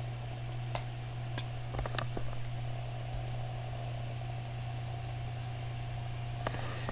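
Steady low hum and hiss, with a scattering of faint short clicks and taps, a few in the first half and one near the end.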